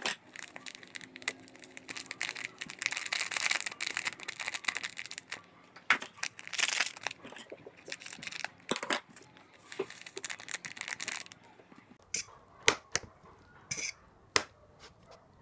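Small foil seasoning sachet crinkling in the hands and being cut open with scissors over a plate of instant noodles, a dense crackle lasting most of the time. It is followed near the end by a few separate sharp clicks.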